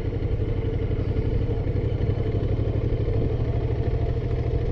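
Motorcycle engine running steadily at a low, even speed, its firing a rapid regular pulse.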